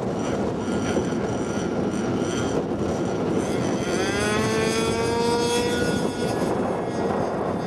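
Small RC model plane engine buzzing in flight, its pitch rising about four seconds in and holding for a couple of seconds before fading. Heavy wind buffets the microphone throughout.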